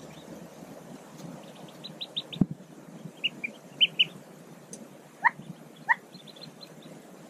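Mallard ducklings peeping at the nest in short high bursts of rapid notes, with two louder rising calls about five and six seconds in. A single low thump about two and a half seconds in.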